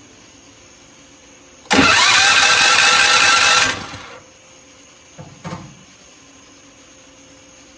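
Predator 212 single-cylinder engine cranked by its newly fitted electric starter for about two seconds without catching, then winding down. Two short blips follow about a second later.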